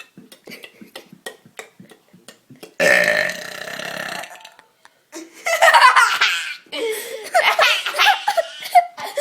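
A person lets out one loud, drawn-out burp about three seconds in, lasting about a second and a half, followed from about five seconds in by laughter.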